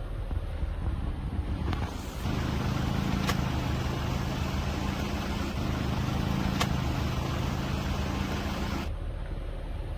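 A motor vehicle running, with steady engine hum and wind noise that grows louder for several seconds and then cuts off abruptly. Two brief sharp clicks sound within that stretch, about three seconds apart.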